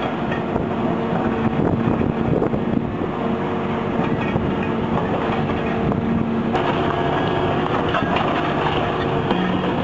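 Excavator engine and hydraulics running steadily while a fixed concrete pulveriser's jaws crush reinforced concrete, with irregular cracking and crunching of breaking concrete throughout. The sound changes abruptly about six and a half seconds in.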